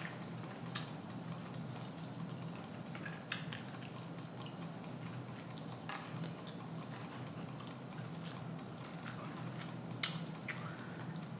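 Quiet chewing and mouth sounds of someone eating fried food, with scattered short clicks, over a steady low hum.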